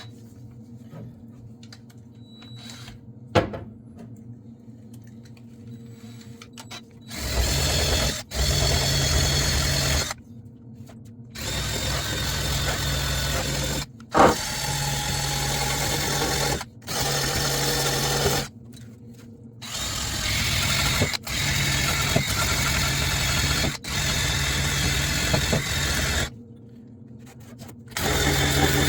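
Electric drill fitted with a wire wheel, started and stopped in repeated bursts of a few seconds each, brushing rust off a corroded steel floor pan to expose its spot welds. It starts about seven seconds in, after a single sharp click.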